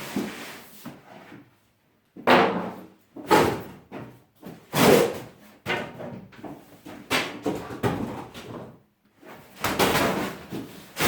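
A cardboard box being handled and pulled off a boxed bench planer: a run of sudden thumps, knocks and scraping rustles of cardboard, the loudest a few seconds in.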